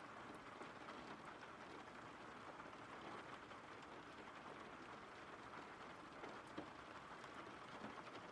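Faint, steady rain: an even hiss of rainfall with a few scattered drop ticks.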